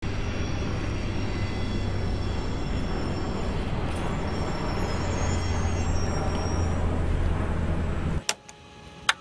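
A steady engine rumble with a low hum that stops abruptly about eight seconds in. Two sharp clicks follow.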